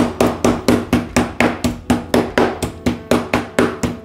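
Meat mallet pounding a cling-film-covered beef steak on a plastic cutting board laid over a towel: a steady run of blows, about four a second.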